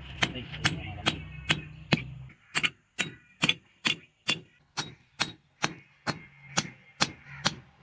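Blacksmith's hammer striking metal on an anvil in a steady forging rhythm, about two to three blows a second, each with a short metallic ring. A steady low hum underneath stops a little after two seconds in.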